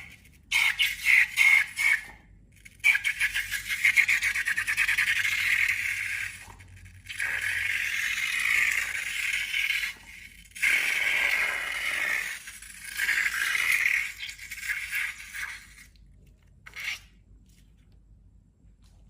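Slime crackling and squelching as it is squeezed and worked by hand, in a string of bursts of a few seconds each, with pauses between; it stops about three-quarters of the way through.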